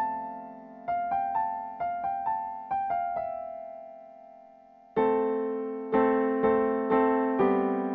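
Yamaha digital keyboard in a piano voice playing a slow melody of single notes that die away into a pause. About five seconds in, louder chords start and repeat roughly twice a second.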